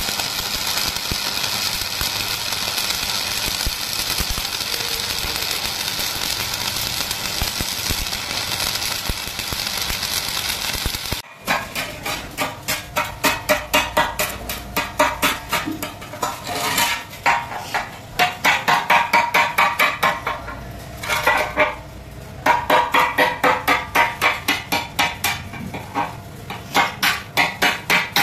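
Arc welding: the electric arc crackling and hissing steadily for about eleven seconds, then stopping abruptly. After that comes a fast, even run of sharp metal taps, about three or four a second in short bursts, as a chipping hammer knocks slag off the fresh weld bead.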